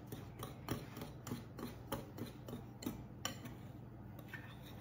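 Wire whisk stirring dry flour mixture in a ceramic bowl, its wires ticking lightly and irregularly against the bowl about two or three times a second, with a soft rubbing through the flour.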